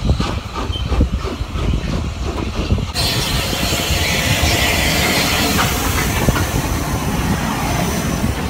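Southern Railway Bulleid Light Pacific No. 34070 passing close alongside on the next track, heard from an open carriage window: about three seconds in a loud hiss sets in as the steam locomotive draws level, then holds as its coaches run past. Underneath, the low rumble of the running trains and wind buffeting the microphone.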